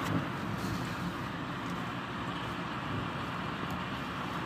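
Heavy thunderstorm rain and wind: a steady rushing noise with a low rumble under it, and a few faint ticks.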